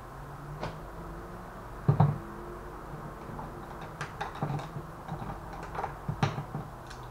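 Scattered clicks and knocks of hard objects being handled and set down on a workbench, the loudest about two seconds in and several more close together later, over a faint low hum.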